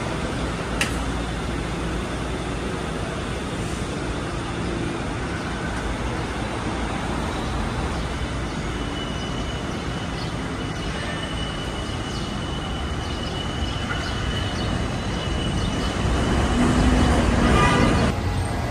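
City street traffic: a steady rumble of cars and buses, swelling louder for a couple of seconds near the end.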